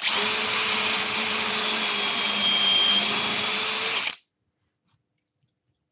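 Power drill running steadily as it bores a dowel hole into a wooden rail through a doweling jig, down to the depth-stop collar on the bit, then stopping suddenly about four seconds in.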